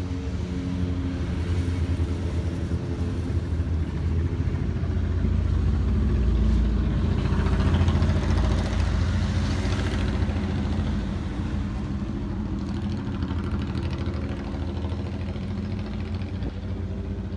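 A motor vehicle's engine running, a low rumble with a steady hum, growing louder to a peak about eight seconds in and then fading.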